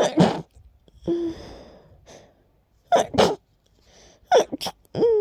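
A person's breathy, stifled sneezes: several sharp bursts in quick succession, some in pairs, with short voiced gasping breaths between them. The sneezes come from a tickly nose the sneezer puts down to allergies.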